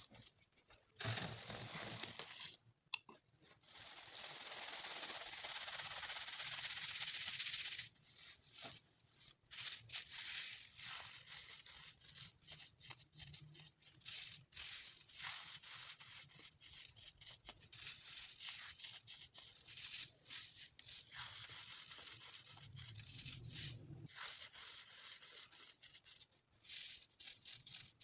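Chunks of dyed baking soda being crushed, a dry crumbly crunching made of many small crackles and snaps, with a longer steady hissing crush a few seconds in.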